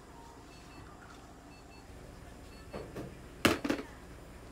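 A faint two-note electronic beep from clinic equipment, a higher note then a lower one, repeating about once a second. About three and a half seconds in come two sharp clicks or knocks close together, with softer knocks a moment before.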